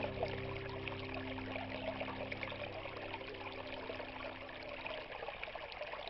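Shallow rocky stream trickling over stones. Soft sustained notes of background music fade out underneath during the first five seconds or so.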